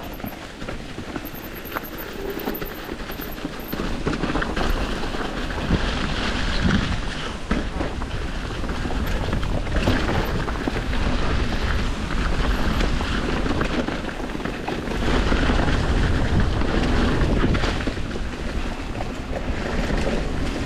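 Mountain bike riding down a dirt trail: wind rumbling on the microphone, tyres rolling over dirt, rocks and wet leaves, and scattered knocks and rattles from the bike. It gets louder about four seconds in and again near the end, as the speed picks up.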